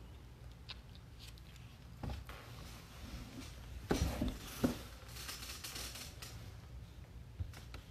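Faint handling sounds: a few knocks about four seconds in, followed by a brief rustle, over a low room hum.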